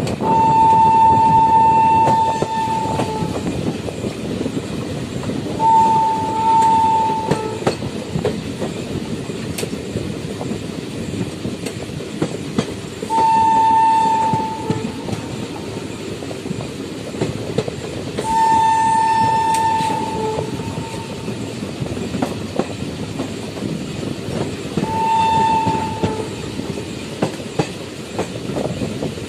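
Locomotive horn of a moving express train, heard from a coach behind it. It sounds five blasts of one steady pitch several seconds apart, the first about three seconds long and the last short. Underneath runs the continuous rumble and clickety-clack of the coach wheels on the rails.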